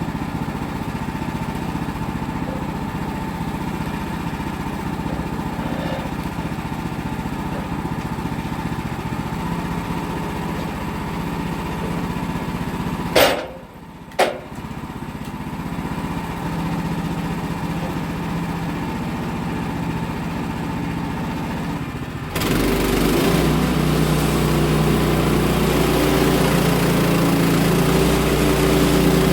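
Sawmill's gas engine running steadily, with two sharp knocks about halfway through. About two-thirds of the way in, the sound jumps suddenly to a louder, fuller, deeper running noise that holds.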